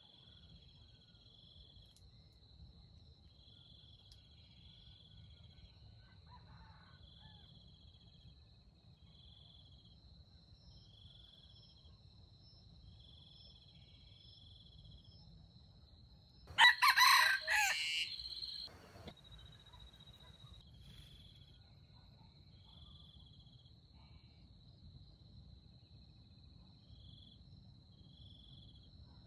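A junglefowl rooster crows once, about two-thirds of the way in: a single short crow of about two seconds that stands out loudly. Behind it, insects keep up a steady high drone with a short chirp repeating every second or so.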